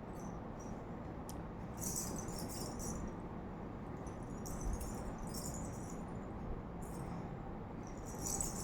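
A small jingling rattle shaken in short bursts, a few times, over a steady low hum.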